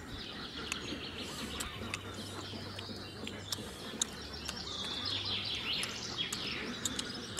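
Birds chirping and calling over one another in short swooping notes, with a few sharp light clicks.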